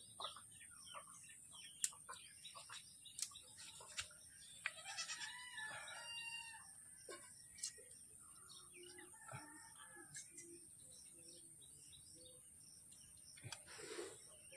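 Faint sharp clicks of snail shells being cracked open by hand, with chickens and small birds calling around them.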